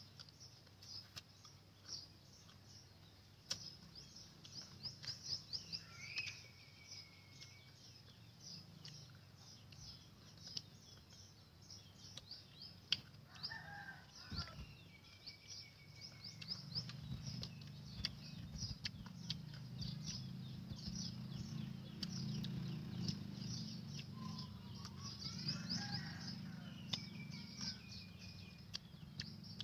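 Birds chirping in quick high trills throughout, with a few longer calls and chicken clucks among them and scattered small clicks. A low steady rumble comes in about halfway.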